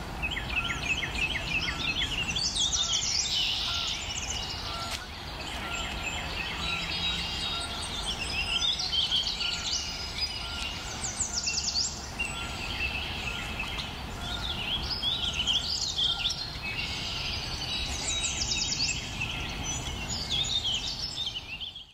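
Several songbirds singing, with repeated chirps and quick trills in short phrases, over a steady low outdoor background hum.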